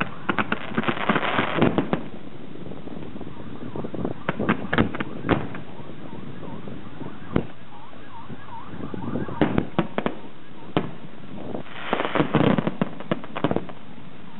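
Aerial fireworks bursting overhead: sharp bangs come in clusters, with thick runs of crackling near the start and again about twelve seconds in.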